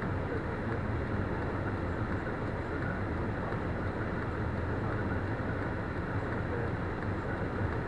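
Steady low rumble of a vehicle on the road, engine and tyre noise running evenly without a break.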